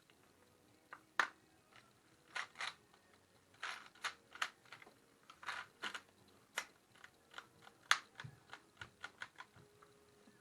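Irregular sharp clicks and short clatters of small hard parts being handled and fitted together, the plastic housing and internals of a DeWalt 20V cordless drill being reassembled by hand. Two louder clicks stand out, about a second in and near eight seconds.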